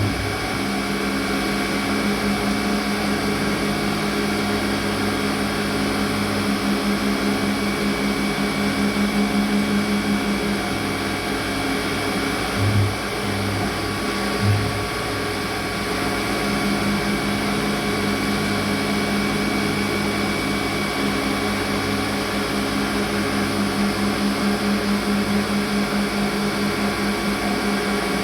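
Kunzmann WF7 CNC milling machine running: a steady machine hum with several steady tones that swell and ease, and two short louder blips near the middle.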